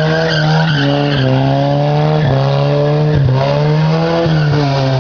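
A racing vehicle's engine accelerating hard through the gears. Its pitch climbs and drops back at each shift, about once a second, over a steady low drone.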